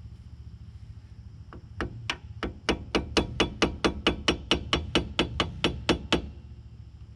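A hammer taps a flathead screwdriver in a quick, even run of sharp metal strikes, about four or five a second for some four seconds. The strikes are prying up the staked locking tabs of a rear hub nut on a Nissan Sentra.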